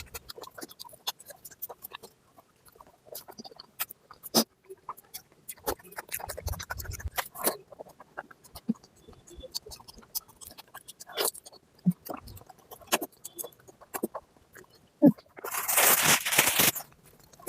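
Close-up eating sounds of a person eating mutton fat curry with rice: wet chewing, lip smacks and crunching, made of many irregular short clicks. Near the end a louder rushing noise lasts about a second and a half.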